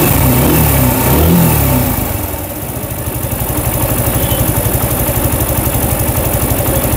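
Freshly rebuilt motorcycle engine, with a reseated crankshaft and a new connecting rod, on its test run: it is revved up and down twice in the first two seconds, then settles into a steady, evenly pulsing idle.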